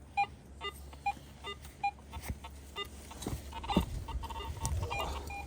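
Metal detector beeping in short, evenly repeated tones, about two to three a second, coming faster and closer together near the end.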